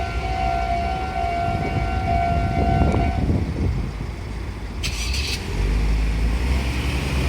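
Japanese railway level-crossing warning bell ringing steadily over the low rumble of a passing train, then cutting off about three seconds in as the crossing clears. A short hiss follows about five seconds in, and a low rumble grows louder near the end.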